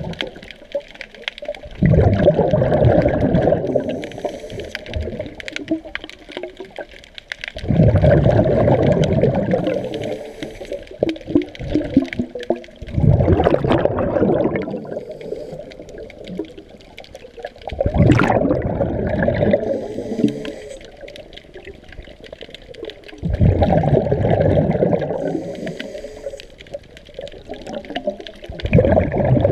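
Underwater bubbling of a diver's exhaled breath, heard through the camera housing: a burst of bubbles two to three seconds long about every five to six seconds, one per breath, with quieter water noise between.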